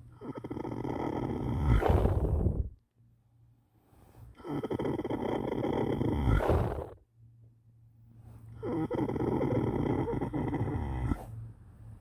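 A horse snoring: three long snores about four seconds apart, each growing louder and then breaking off abruptly.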